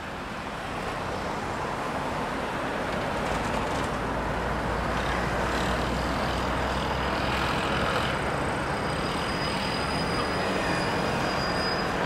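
Steady city traffic noise, fading in over the first couple of seconds. A deeper rumble joins in the middle, and a thin, steady high tone sounds for about three seconds near the end.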